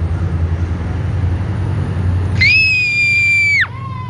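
Low rumble of a diesel commuter locomotive idling at a station. About two and a half seconds in, a loud, high shrill tone sounds for just over a second and drops away with a quick downward slide, followed by a fainter, lower tone.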